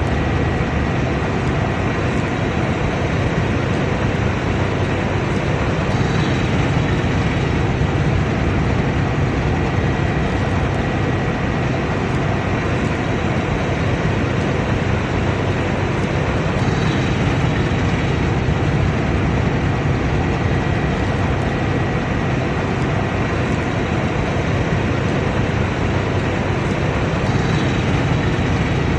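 Combine harvester running steadily under load, a continuous dense machine noise with a thin whine held over it.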